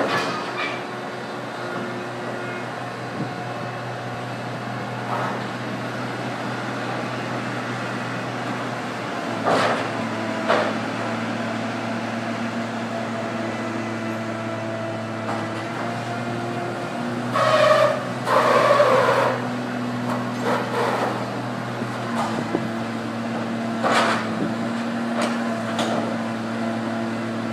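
Plasser & Theurer track-renewal train's machinery running steadily with a low drone while its gantry crane works along the sleeper wagons, with occasional clanks and a louder two-part clatter about two-thirds of the way in.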